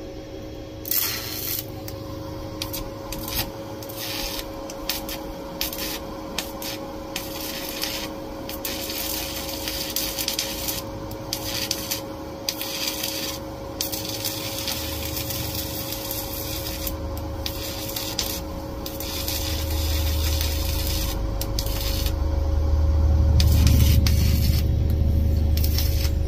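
Stick welding with a 7018 rod on a cheap 110-volt welder: the arc crackles and sputters irregularly, in uneven bursts with short breaks, over a steady hum. A low rumble builds in the last several seconds.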